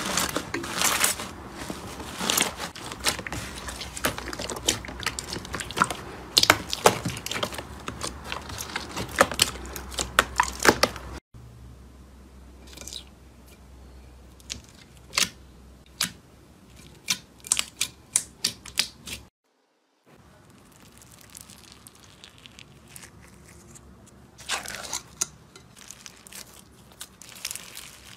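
Slime being squeezed and pressed by hand, making crackling, popping clicks. First comes thick, dense crackling from fluffy slime. After a brief silent gap it turns to sparser, sharp clicks from a finger pressing clear slime, then a few crunchy crackles near the end.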